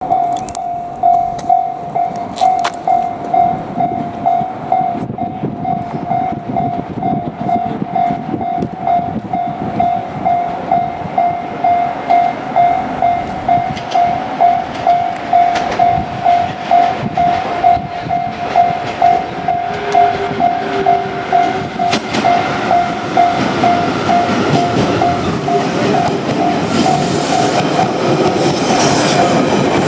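Japanese level crossing warning bell ringing steadily at about two strokes a second. About three-quarters of the way through, the rolling noise of an approaching JR Kyushu 817 series electric train rises and grows louder as it reaches the crossing.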